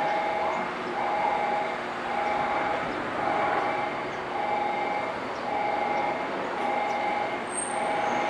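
Railway level-crossing warning bell ringing, a two-tone chime repeated about once a second, over the steady running noise of a freight train hauled by an EF210 electric locomotive approaching.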